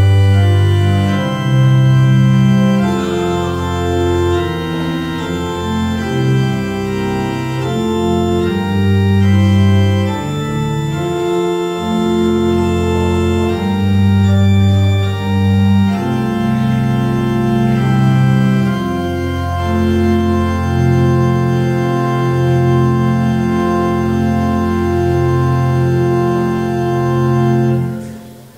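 Organ playing slow, held chords that change every second or two, with the final chord dying away near the end.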